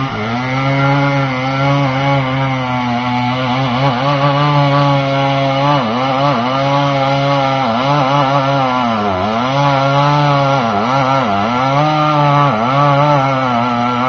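Stihl MS 390 two-stroke chainsaw held at full throttle cutting into a tree trunk, its engine note dipping and recovering several times in the second half as the chain bogs under load in the cut.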